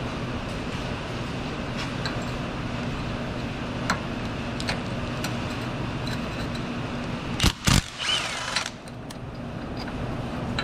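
A 3/8-inch impact wrench on a universal joint and extension, backing out an AC compressor mounting bolt: two short bursts about seven and a half seconds in, then a run of about half a second. Before that there is a steady background hum with a few light clicks as the socket is fitted onto the bolt.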